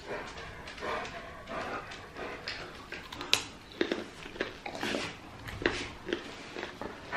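A dog whimpering in short whines, begging for food, over the crunch of raw carrot sticks being bitten and chewed.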